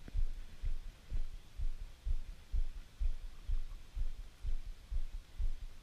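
Dull low thumps about twice a second in a steady rhythm as a fishing reel is cranked through a topwater frog retrieve.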